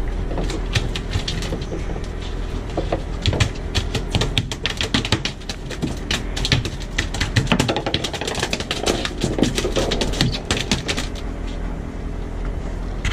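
Rapid, irregular clicking and tapping, thickest in the middle and thinning out near the end, over a steady low hum.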